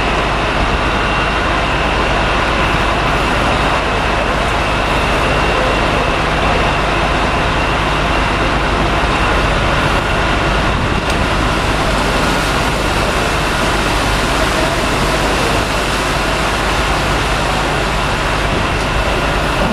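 Steady rumble and hiss of a large ferry's engines and propeller wash churning the water as the ship moves off from its dock, with a faint steady whine over it.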